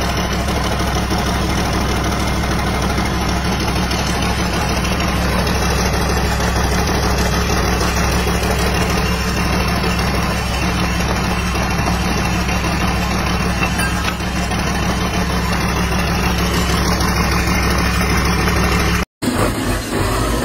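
Secondhand diesel engine idling steadily with an even, unchanging beat. Near the end the sound breaks off for a moment and a different engine is heard.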